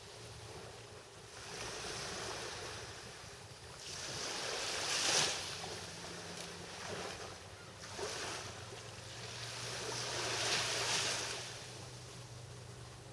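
Small waves from a calm sea lapping and washing onto a sandy shore, about four gentle washes a few seconds apart, the biggest about five seconds in. A faint low steady hum lies underneath.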